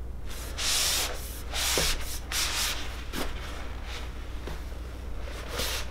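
Longbow being slid out of its bow sleeve: four or five rubbing swishes of the limbs against the sleeve, the strongest in the first three seconds, then fainter rustling.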